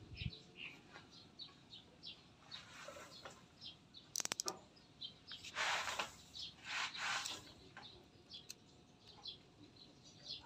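Small birds chirping over and over, short high notes all through. About four seconds in comes a quick run of clicks, then two louder rasping strokes around six and seven seconds, a knife shaving the bougainvillea scion to a wedge for grafting.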